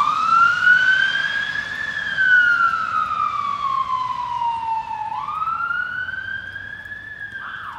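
Fire engine siren starting up in a slow wail, rising over about two seconds, falling over about three and rising again, then switching to a fast yelp near the end. It grows fainter as the engine pulls away.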